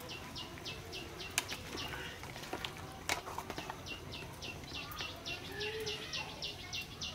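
A ladle stirring soup in an aluminium pot, with a few sharp knocks against the pot, over a steady rhythmic chirping of about three to four high chirps a second.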